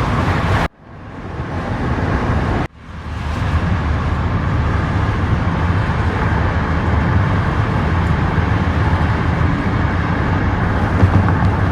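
Steady road and engine rumble inside a moving car's cabin. It cuts out abruptly twice in the first three seconds and swells back in each time.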